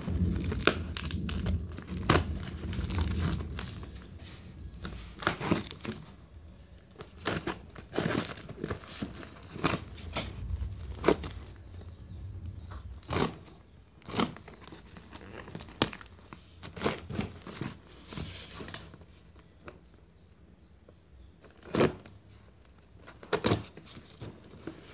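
Cardboard box being cut and pried open by hand with scissors: crinkling and tearing of tape and cardboard, with many scattered sharp clicks and knocks. It is busiest and loudest in the first few seconds.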